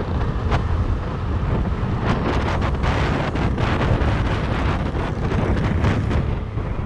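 Heavy wind buffeting the microphone in irregular gusts over a steady low rumble.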